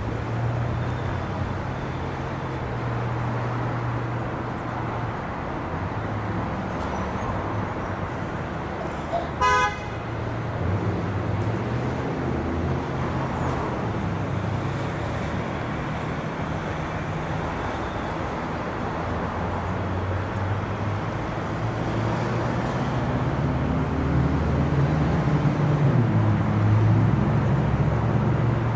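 Diesel freight locomotive engine running with a steady low drone. One short horn blast comes about a third of the way in, and the engine grows louder near the end.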